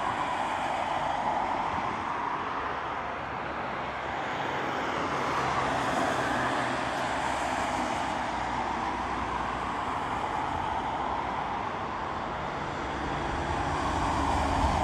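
Embraer 190 jet airliner's twin turbofan engines running at taxi power as it rolls onto the runway, a steady engine noise. It grows louder, with more low rumble, near the end.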